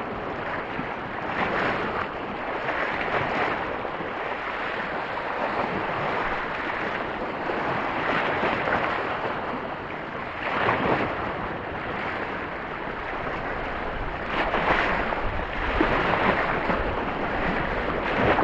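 Small waves breaking and washing over a shallow rock reef, the surf swelling louder every few seconds.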